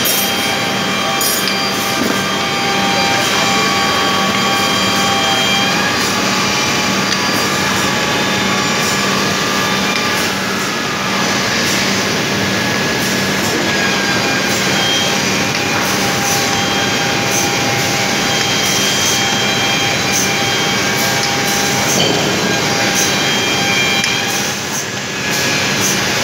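Automatic three-spindle boring machine running: its drill motors whine steadily while the bits bore into wooden chair parts, with occasional clicks and knocks from the heads and clamps.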